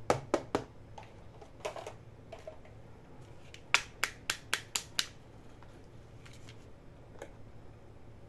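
Hard plastic toys clicking as they are handled: a few sharp clicks as a toy suitcase is set down. Then come six quick clicks, about four a second, from a pair of pink plastic toy high-heeled shoes being handled, and a single click later as they are laid down.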